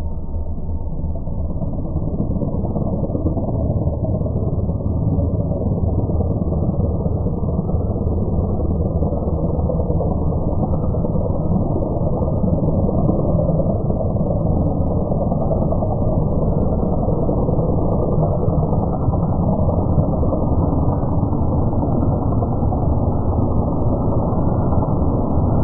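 Crop-duster airplane's engine running steadily as the plane flies low toward the listener, growing gradually louder.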